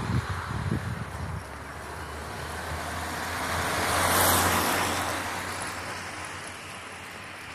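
Road traffic: a vehicle's engine rumbling low near the start, then a car passing that swells to its loudest about four seconds in and slowly fades away.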